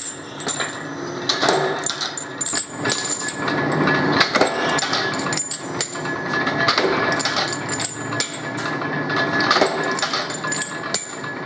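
Flywheel-driven power press at work on steel sprocket blanks: repeated sharp metal clanks at irregular intervals over the machine's steady running noise, with lighter clinks of steel parts being handled at the die.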